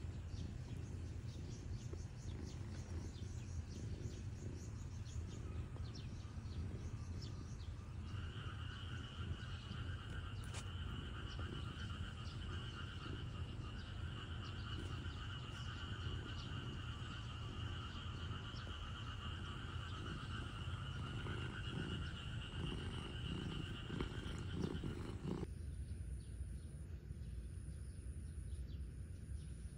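Outdoor ambience: a steady low rumble under a chorus of calling insects or frogs. About eight seconds in, a steady trilling chorus at two pitches sets in and keeps going. It stops abruptly near the end, and a thin high whine takes its place.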